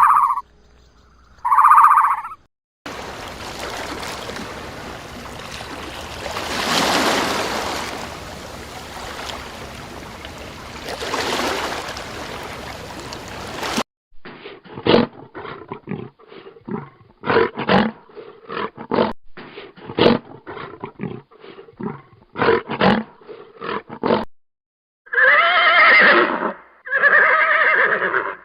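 A sequence of animal sounds. First come two short calls, then a long, deep roar that swells twice over about ten seconds. A run of short, sharp knocks follows, and near the end a horse whinnies twice.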